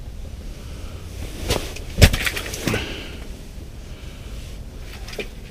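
Close handling noises: a few sharp knocks and clicks, the loudest about two seconds in, over a steady low hum.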